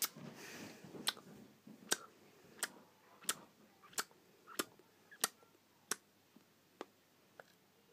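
A regular series of sharp clicks, about one and a half a second, growing fainter and sparser near the end.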